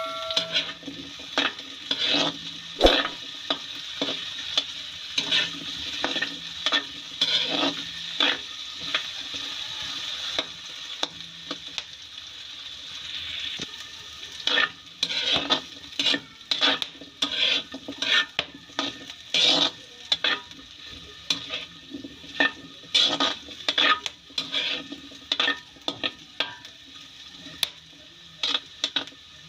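Cubed potatoes frying in a large metal wok with a steady sizzle. A metal ladle stirs and scrapes them around the pan in frequent, irregular strokes.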